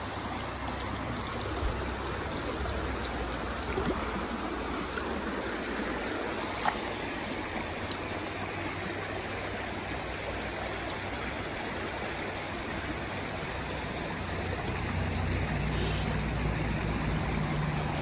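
Shallow stream water running steadily over bedrock and gravel, a continuous babbling rush, with a few faint clicks scattered through it.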